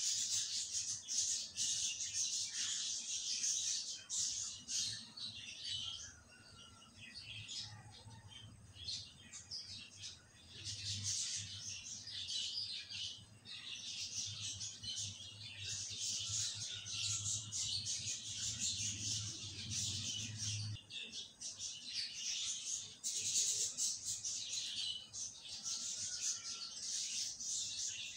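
Continuous high-pitched chirping of small birds. Under it, a steady low hum starts about a third of the way in and cuts off suddenly about three-quarters through.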